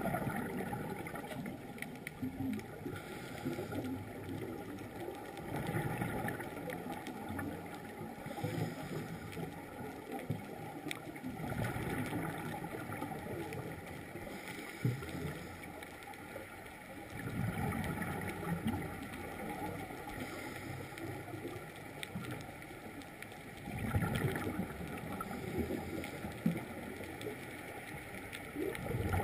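Underwater recording of scuba divers breathing through their regulators, with exhaled bubbles gurgling out in bursts about every five or six seconds.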